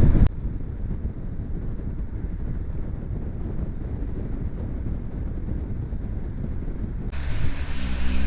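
Vehicle cabin noise while driving: a steady low road-and-engine rumble, muffled with little treble. Near the end it turns brighter and a steady engine hum comes in.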